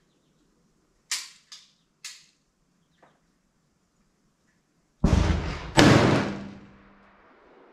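Two shots from a Sulan Arms SS-211 12-gauge over-and-under shotgun with a 10-inch barrel, fired with slugs, under a second apart, the second the louder, each trailing off in a long echo. A few sharp clicks come a few seconds before the shots.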